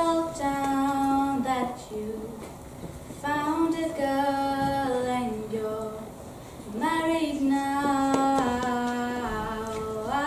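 A young girl singing solo and unaccompanied: three long phrases of held and sliding notes with short pauses between them, and a fourth phrase starting near the end.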